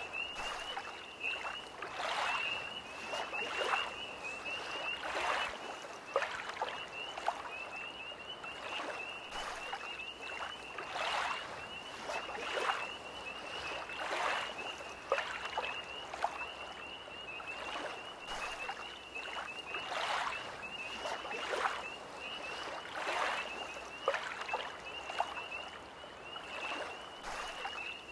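Small lake waves lapping against the shore in irregular splashes every second or two, under a tree frog's continuous high-pitched trill.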